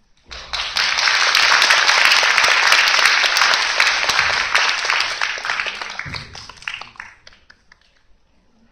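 Audience applauding: the clapping starts within the first second, holds steady, then thins out and dies away about seven seconds in.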